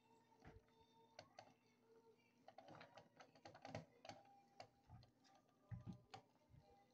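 Faint, irregular ticking and clicking of a glass Pyrex measuring cup rattling against the bottom of a steel pot of heating water.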